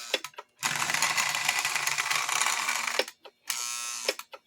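Lionel 2046 toy steam locomotive's electric motor and gears running on the track with a steady mechanical whir. It stops briefly twice, with sharp clicks around the stops.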